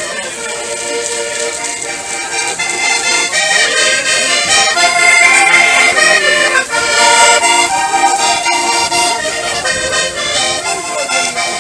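Accordion-led traditional Portuguese folk music, played by a folk group (rancho folclórico). It grows louder through the middle and eases off near the end.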